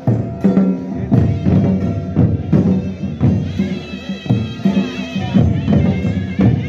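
Himachali folk procession music: drums beating in a steady rhythm, joined about three seconds in by a reedy, bagpipe-like wind melody.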